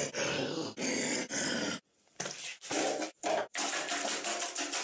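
Harsh, rhythmic grunting noises, about two a second. They break off about two seconds in, come back as a few short bursts, and then turn into a fast, even pulsing.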